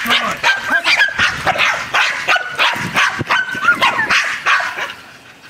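Dogs barking in quick, high-pitched barks, one after another, dying down near the end.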